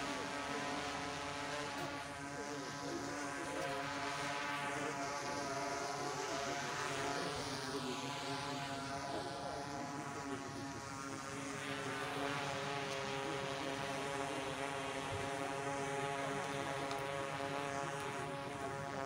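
Small multirotor drone hovering, a steady many-toned propeller whine. Its higher hiss sweeps up and down for a while as it shifts position.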